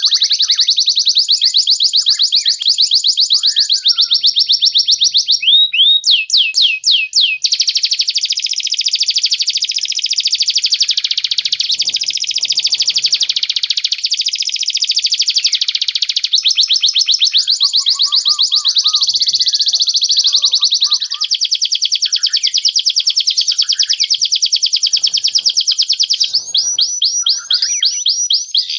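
Domestic canary singing a long unbroken song of fast rolling trills, broken twice by runs of quick downward-sweeping notes.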